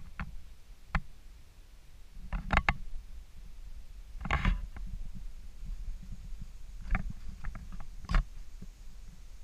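Camera handling noise: a low rumble with a few scattered short knocks and scuffs as the camera is moved about and shoes shift on concrete.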